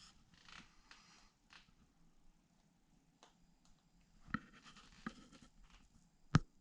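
Faint scraping and rustling with a few light clicks, the sharpest one near the end.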